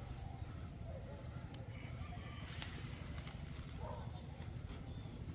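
Faint outdoor background: a few short bird calls over a low steady rumble.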